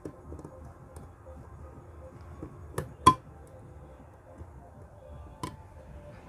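Screws being tightened into an amplifier's metal cover: faint scraping and ticking, with three sharp metallic clicks, the loudest about three seconds in.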